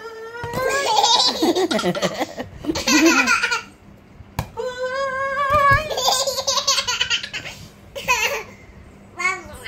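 A one-year-old baby laughing hysterically in two long fits and a few short bursts. Before each fit there is a long, slightly rising drawn-out vocal noise.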